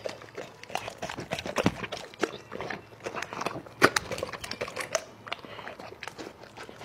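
A Doberman eating close to the microphone: irregular wet chomping, smacking and licking as it chews grapefruit segments and greens off a plate, with the loudest snap about four seconds in.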